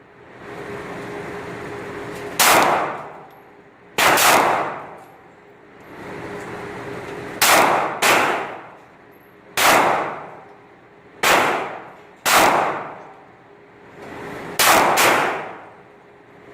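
About nine 9mm pistol shots from a Smith & Wesson Sigma SW9VE, fired one at a time at an uneven pace, each echoing, with two in quick succession near the end. A steady hum sounds between the shots.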